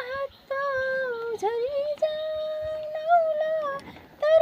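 A woman singing a Nepali song unaccompanied, holding long high notes with slides between them, with a short pause for breath near the end.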